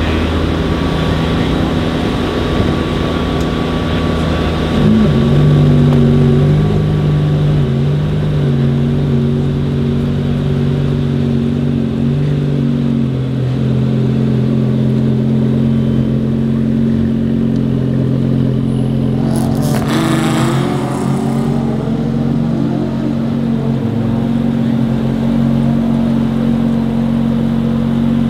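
Audi 2.5 TFSI turbocharged inline five-cylinder, fitted to a tuned VW Golf 7.5 R with a Garrett G35-1050 turbo, idling steadily, with a short throttle blip about five seconds in. A brief rushing noise passes about twenty seconds in.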